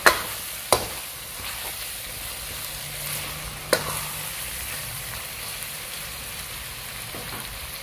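Potatoes and minced meat (aloo keema) sizzling steadily in a pan while being stirred with a wooden spatula. Three sharp knocks of the spatula against the pan: one right at the start, one under a second in, and one nearly four seconds in.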